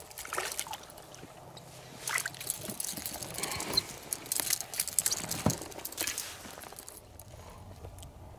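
Water sloshing and splashing against a boat on a river, in irregular bursts that are loudest in the middle and die down near the end.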